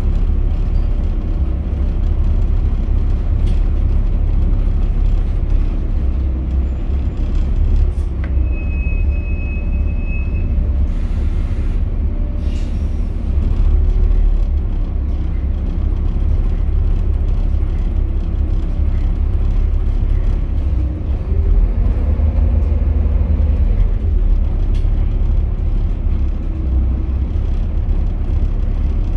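Volvo B7TL double-decker bus's D7C six-cylinder diesel heard from inside the lower deck while driving: a continuous low engine drone and ride rumble. A steady high whine lasts about two seconds, starting about eight seconds in, and a short hiss of air from the air brakes follows just after it.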